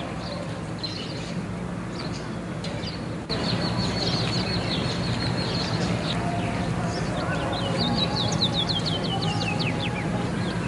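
Birds chirping outdoors: rapid runs of short, falling high chirps, busiest in the second half, over a steady low background hum. The sound changes abruptly about three seconds in.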